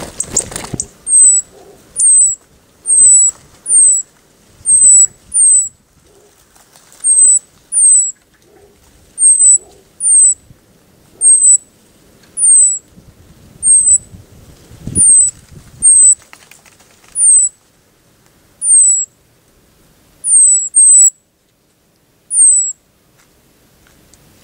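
A small songbird close by gives a long series of short, high, thin call notes, each sliding quickly downward, roughly one a second and sometimes two in quick succession. Just after the start there is splashing and wing noise as a bird leaves the water bath.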